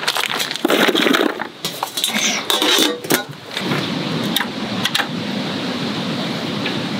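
Ice cubes clattering and clinking into the metal box of a draft beer server, packed around its radiator to chill it. About three and a half seconds in this gives way to a steady hiss with a few light knocks as a wooden folding table is opened.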